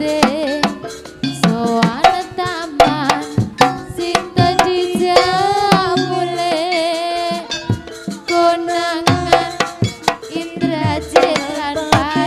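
Live Javanese traditional ensemble music: hand drums playing a busy, quick rhythm under a melody that bends and wavers in pitch, over steady held tones.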